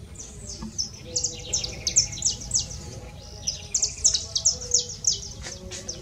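A small finch singing two quick bursts of high, rapid chirping notes, the first about a second in and the second about three and a half seconds in, over a low steady rumble.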